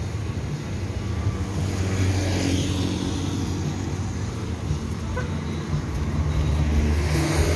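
Road traffic on a wet street: a steady low engine rumble, with tyre hiss swelling as a vehicle passes about two to three seconds in.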